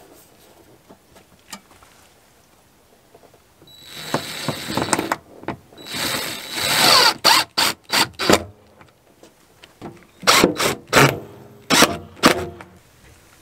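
Cordless drill-driver driving screws through a wall vent hood's flange into shed siding. It starts about four seconds in with a couple of longer runs, one rising in pitch, then comes in short quick bursts.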